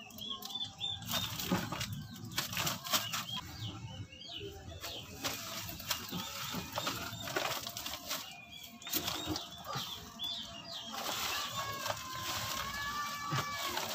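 Scattered knocks and clicks of hands and parts being handled at a vehicle's rear axle and differential housing, with birds chirping in the background and a drawn-out wavering call near the end.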